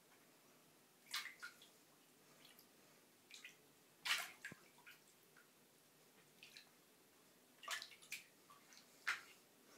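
Two cats moving and pawing in shallow bathtub water: scattered small splashes and drips, the loudest about four seconds in.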